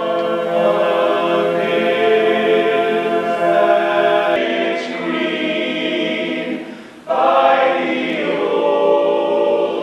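Men's barbershop chorus singing a cappella in close harmony, holding sustained chords. The singing fades briefly about seven seconds in and then picks up again.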